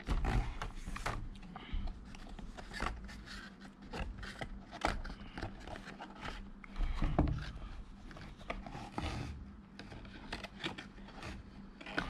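Cardboard packaging and a clear plastic blister tray being handled, rubbing, scraping and tapping in short, irregular rustles and clicks.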